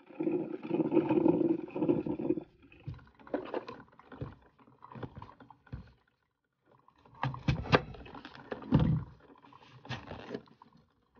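Drip coffee maker brewing, with a steady gurgling hiss for about two and a half seconds, followed by scattered clicks. After a short gap, a knife cuts through a crisp green apple in a series of sharp crunching cuts and knocks against the plate.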